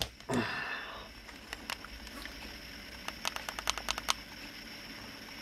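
Handling rustle of a Smok G Priv box mod, then a few separate clicks and a quick run of about eight sharp clicks in under a second: its fire button pressed rapidly to switch the mod on.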